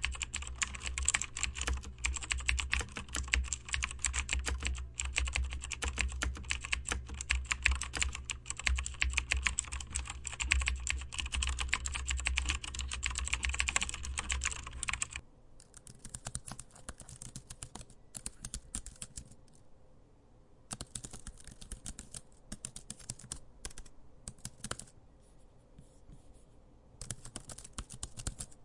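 Typing on a keyboard: about fifteen seconds of fast, continuous key clicks over a low hum, then an abrupt switch to a quieter recording of slower typing broken by short pauses.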